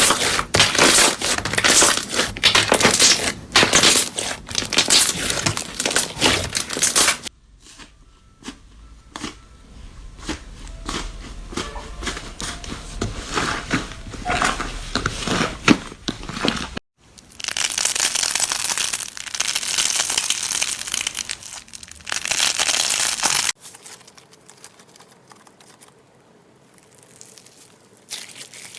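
Slime being squeezed, poked and stretched by hand, giving dense crackling and popping clicks. Several separate clips cut in abruptly one after another: loud crackling, then a quieter stretch of sparser clicks, then loud crackling again, and a faint quiet stretch near the end.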